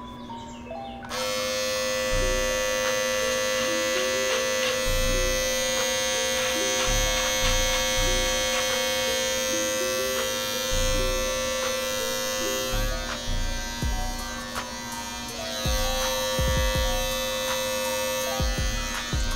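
Electric hair clippers switched on about a second in and buzzing steadily while cutting hair.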